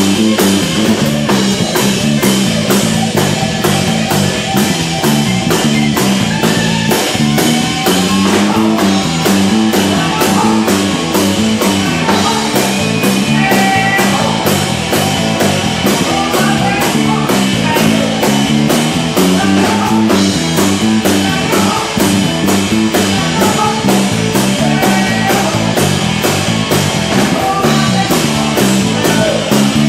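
Live rock band playing: electric guitar, electric bass and drum kit, with the drums keeping a steady beat under the guitar.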